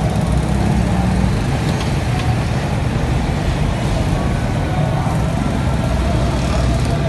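Steady low rumble of street traffic and engines.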